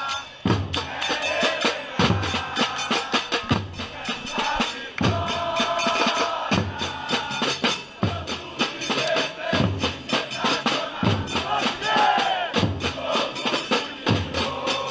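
Football supporters' drum section, big bass drums and snare drums, playing a steady driving beat, with regular heavy bass-drum strokes under fast snare strokes, while the crowd sings a chant along with it.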